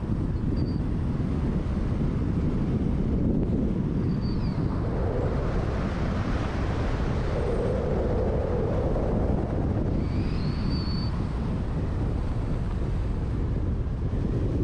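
Steady rumble of a car being driven, road and wind noise on the microphone.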